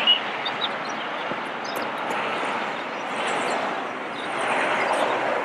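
Steady outdoor background noise, with a few faint short high chirps near the start and a slight swell near the end.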